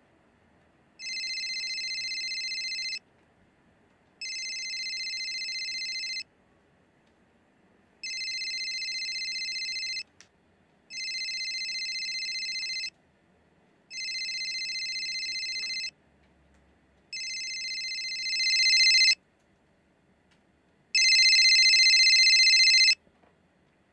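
A mobile phone ringing with an electronic ringtone: seven rings of about two seconds each, with short pauses between them. The last two rings are louder.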